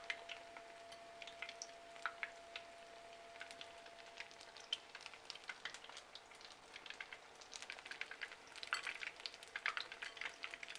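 Batter-coated Nenthiram banana slices sizzling and crackling in hot oil in a frying pan, the crackles growing denser about three-quarters of the way through.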